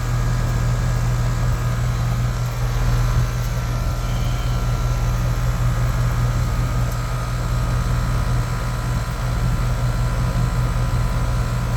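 Air-conditioning condensing unit running: a steady low hum from the compressor and condenser fan, the system under load.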